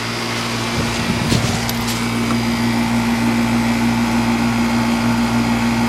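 2001 York Olympian 3.5-ton central air-conditioner condenser running, its reciprocating compressor and fan making a steady, loud hum with a low electrical drone. A few faint clicks come between one and two seconds in.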